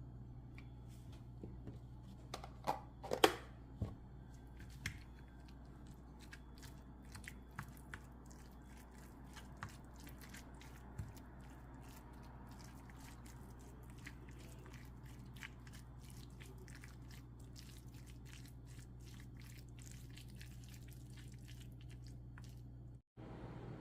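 A person eating: chewing with many small clicks, and a few sharper knocks about three seconds in, over a steady low hum.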